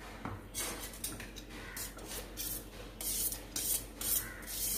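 Steel spoon scraping cooked rice out of a perforated steel colander into a pot: a run of short scrapes, coming stronger and closer together in the second half.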